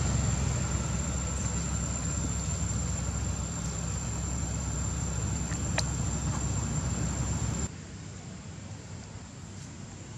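A steady low hum like an engine idling, with a thin high whine above it and one sharp click about six seconds in. Both stop abruptly near the end, leaving a quieter hiss.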